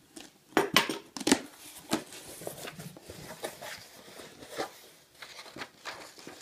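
Cardboard shipping box being opened: a few sharp strokes of scissors slitting the packing tape, loudest about half a second to a second and a half in. Then softer crackling and rustling as the flaps fold back and the paper packing is handled.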